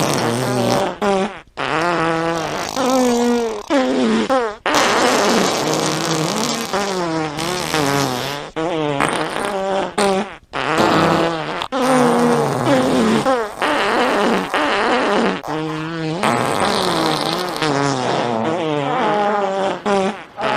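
A string of fart sound effects, about seven long farts one after another with brief gaps between them. Each has a wavering, warbling pitch that slides up and down.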